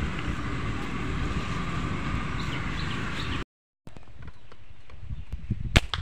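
A shot dove's wings beating against dry leaves on the ground, over wind buffeting the microphone, breaking off abruptly after about three and a half seconds. A quieter outdoor background follows, with one sharp click shortly before the end.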